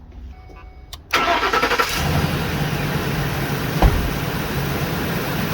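Car engine being started: the starter cranks about a second in, the engine catches and settles into a steady idle, with one short thump near the middle.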